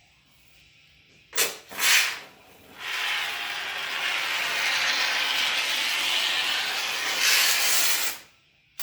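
Fresh can of Great Stuff expanding foam sealant spraying: two short spurts about a second and a half in, then a steady hiss for about five seconds as the new can flows freely.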